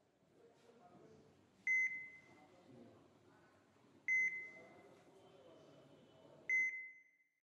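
An electronic beeper sounding three times, about two and a half seconds apart, each a short high beep that fades quickly, over a faint low murmur.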